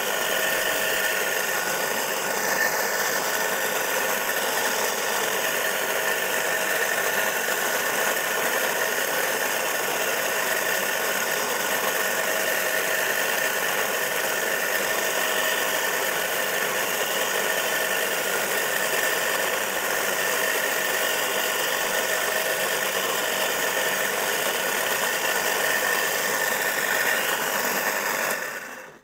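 Single-phase electric motor of a walk-behind furrowing cultivator running steadily under load as it cuts a furrow through the soil; it stops abruptly near the end.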